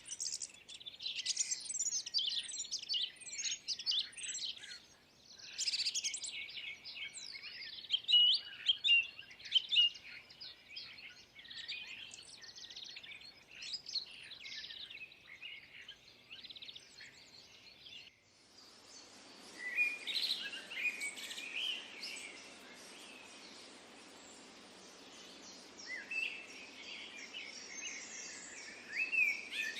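Many small birds chirping and twittering in a dense, overlapping chorus of quick high notes. About 18 seconds in the sound changes abruptly to a steady background hiss with fewer, fainter chirps.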